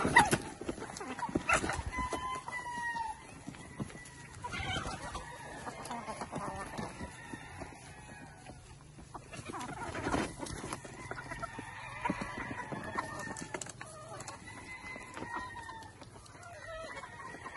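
Game roosters and hens clucking as they feed, with roosters crowing: one long crow about two seconds in and more from past the middle. A few sharp knocks stand out, the loudest right at the start and about ten seconds in.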